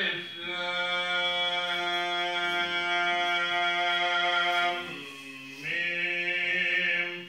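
A man chanting Islamic devotional chant, holding one long steady note, dipping lower briefly about five seconds in, then holding the note again until it stops near the end.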